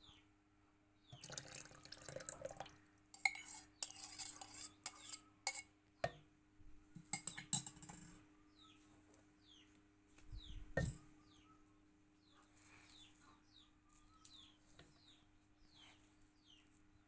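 Dishes and cutlery clinking and clattering for several seconds, then one dull knock a few seconds later. Short falling bird chirps repeat in the background.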